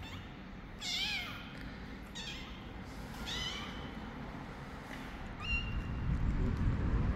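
Young tabby kitten meowing: four short, high mews about a second apart, the first and third the loudest. Near the end a low rumble of outdoor noise rises and becomes the loudest sound.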